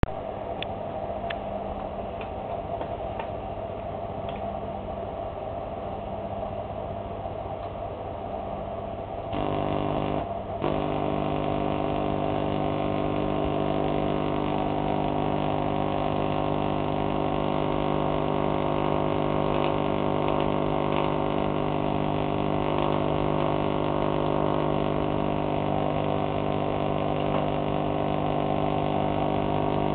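Vacuum tube Tesla coil running: a fainter steady hum with a few clicks, then about nine seconds in a sudden jump to a louder, steady buzzing hum as the coil fires and throws its purple spark from the top terminal. The buzz breaks off briefly about a second after it starts, then holds steady.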